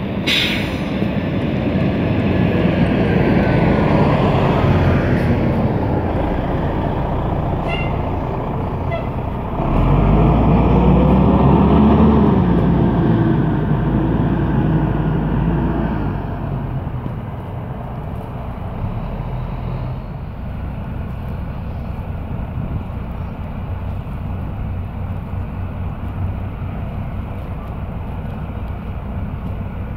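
Distant jet roar of a departing Boeing 777-300ER's GE90-115B engines in climb, a low rumble that swells about ten seconds in and eases off after about sixteen seconds. A short sharp hiss comes at the very start.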